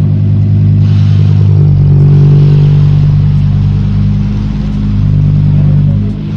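Car engine running at a steady speed, a loud deep drone that eases briefly about four and a half seconds in and again near the end.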